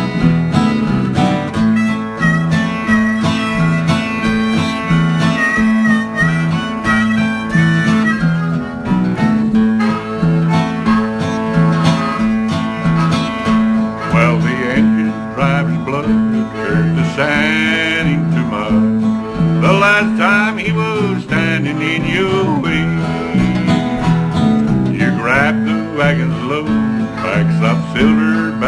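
Instrumental break of a country-style Western ballad: acoustic guitar and bass guitar keep a steady rhythm while a harmonica plays the lead, with bent, sliding notes in the second half.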